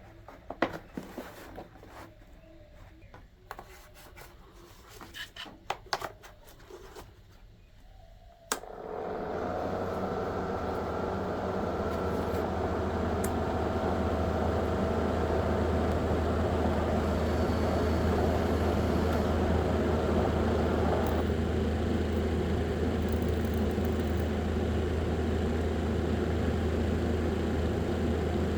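A few light clicks and handling knocks, then a switch click about nine seconds in, and a small homemade battery-powered fan motor starts and runs steadily with a low hum and a whirring rush of air; its tone drops slightly a little past the twenty-second mark.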